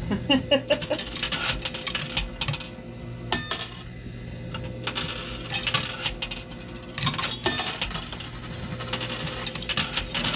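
Quarters clinking and clattering in a coin pusher arcade machine, in several bursts of rapid metallic clicks, over a steady low hum.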